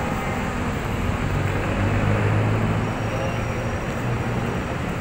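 Street traffic: a steady rumble of vehicles, with one engine's low hum growing louder about two seconds in, then easing off.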